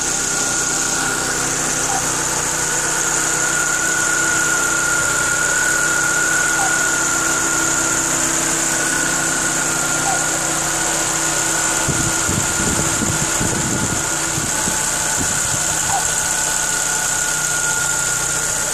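Chevrolet Agile 1.4 four-cylinder engine running steadily at idle with a constant high-pitched whine over it, the strange noise the owner is complaining about; its cause is not known. Some brief irregular low rumbling comes about twelve seconds in.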